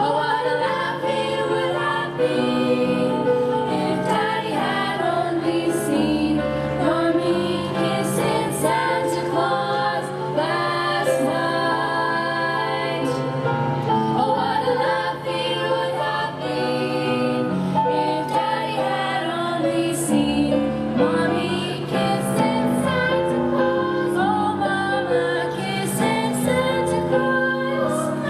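Youth choir singing a song in parts, the voices holding notes and moving between chords without a break.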